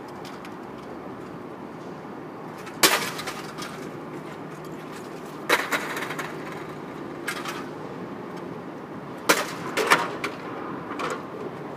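Loud crashing impacts, each followed by a short rattle: four strong ones a few seconds apart, the last two close together, with a couple of lighter knocks between them.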